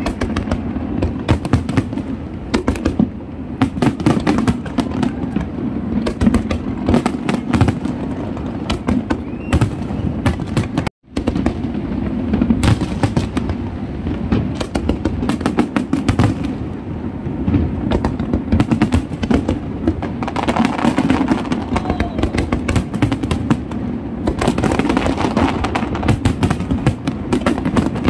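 Large fireworks display: a dense, unbroken barrage of aerial shell bursts, with crackling growing stronger in the latter part. The sound drops out completely for a split second about a third of the way through.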